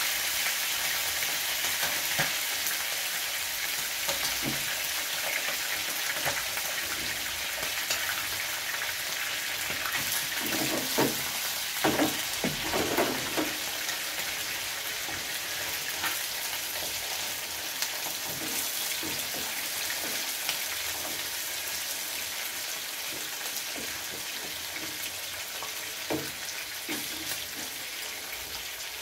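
Chicken pieces pan-frying in hot oil in a frying pan, a steady sizzle. A few louder bursts come about eleven to thirteen seconds in.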